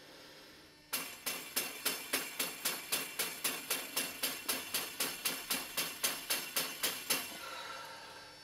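Healing Broom slapped against the top of a head in a fast, even rhythm: about two dozen sharp strikes, roughly four a second, starting about a second in and stopping about a second before the end.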